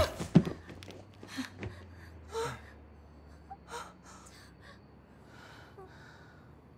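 People breathing hard after exertion: a sharp voiced gasp at the start, then several quieter gasping breaths spaced a second or so apart.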